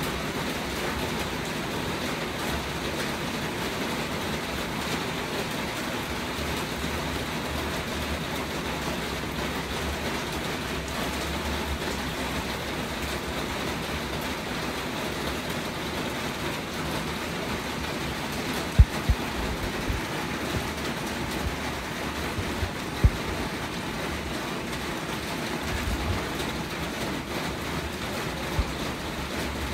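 Steady hiss of rain falling. Two or three short low thumps stand out, about two-thirds of the way through.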